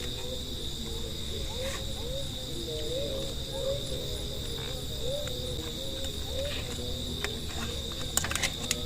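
Night chorus of crickets and other insects: a steady high-pitched trill, with short low rising calls repeating about twice a second underneath. A few sharp clicks near the end.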